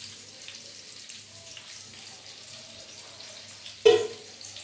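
Chicken pieces frying in hot oil in a pan, a steady low sizzle, with one short, loud sound about four seconds in.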